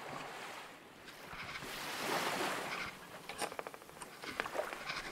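Sea water washing and lapping, swelling about two seconds in, followed by scattered small knocks and splashes.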